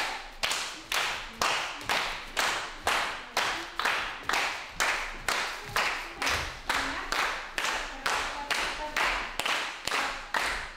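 A group of people clapping hands in a steady rhythm, about two claps a second, keeping the beat for dancers.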